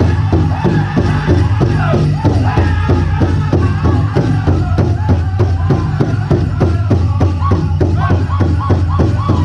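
Powwow drum group singing a chicken dance song: voices singing together over a large drum struck in a fast, even beat of about four strokes a second.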